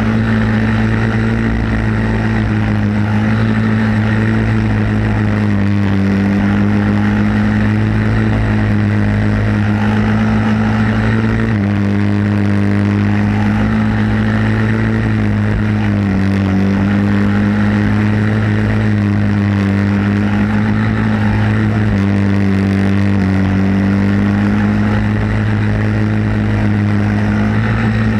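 Onboard sound of a racing kart's single-cylinder flathead four-stroke engine running hard and steady. Its pitch dips slightly and comes back every five or six seconds.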